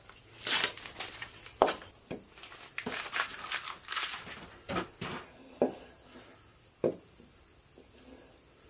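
Masking tape being peeled off a wooden bowl and crumpled, with irregular crinkling and tearing, and a few sharp knocks as the bowl is handled and set down on the lathe bed.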